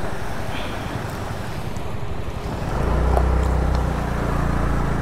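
Wind rushing over the microphone, with a steady low engine hum joining it a little past halfway, typical of a motor scooter running.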